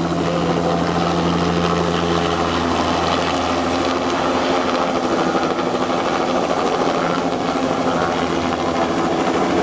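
Light two-bladed turbine helicopter lifting off a helipad and hovering away: loud, steady engine and rotor noise with a thin high whine, its tone shifting a couple of seconds in as it rises.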